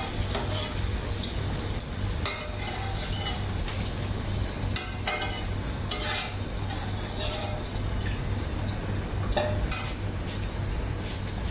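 French fries sizzling in hot oil in an aluminium pot as they finish deep-frying. Scattered clinks and scrapes of a metal slotted spoon and wire strainer against the pot as the fries are lifted out.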